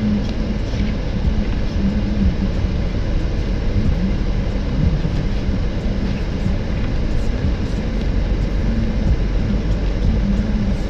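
Steady rumble of a car driving, engine and road noise with a low hum that comes and goes.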